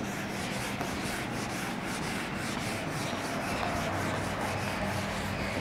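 Whiteboard duster rubbing across a whiteboard, wiping it clean in quick repeated back-and-forth strokes.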